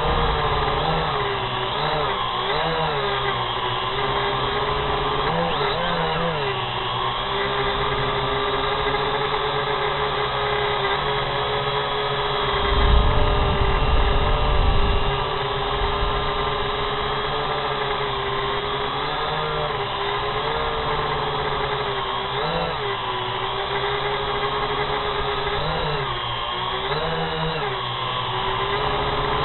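Small drone's propeller motors whining steadily, their pitch wavering briefly several times as the speed changes. A low rumble rises for a couple of seconds around the middle.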